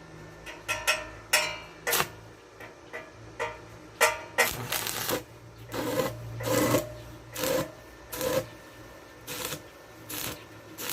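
Stick-welding arc from an inverter welder set to 350 amps, crackling and sputtering in irregular bursts with short breaks as a thick electrode is struck and burns on steel.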